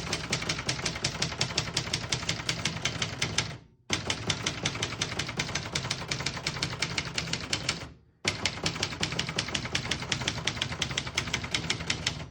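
Typing on a 1967 Brother Webster XL-500 all-metal manual portable typewriter: fast, even keystrokes, several a second, in three runs broken by two short pauses.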